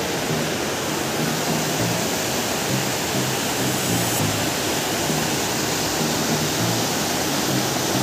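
Fast water rushing steadily over rocks and a weir, with low notes of background music underneath.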